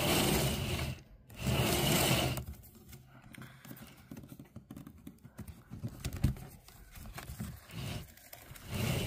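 Wicker basket being turned and slid across a tabletop, with two loud scrapes in the first couple of seconds, then quieter wicker creaks and small clicks as its latch is worked and the lid is opened.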